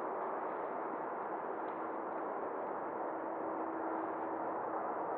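Jet engines of an Airbus A330-343 (Rolls-Royce Trent 700s) running at low taxi power, heard at a distance as a steady rushing noise, with a faint steady whine that comes in about two seconds in and fades before the end.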